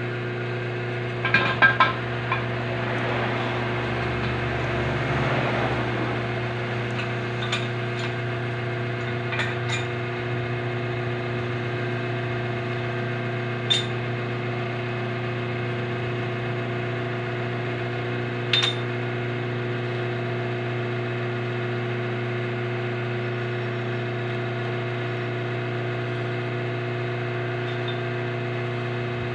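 Occasional metallic clinks and taps as a flywheel is clamped in a lathe's four-jaw chuck and the jaws are adjusted with the chuck key, a cluster near the start and single clinks after, over a steady machine hum.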